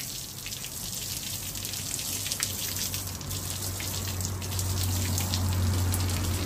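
Water splashing and spattering over the charred skin of a fire-roasted pig as the ash is washed off, full of fine spatters, over a steady low hum that grows louder about four seconds in.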